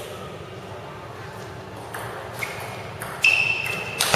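Table tennis rally: the celluloid ball clicking off the paddles and the table, about four sharp ticks roughly half a second apart in the second half, the loudest with a short ringing ping.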